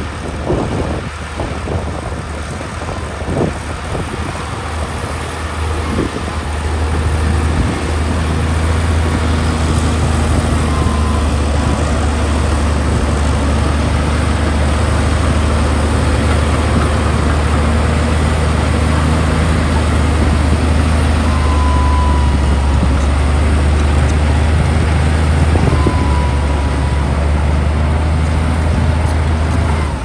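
Liugong B160C crawler bulldozer's diesel engine running steadily as it pushes soil, a low drone that grows louder about seven seconds in. A few knocks come in the first seconds.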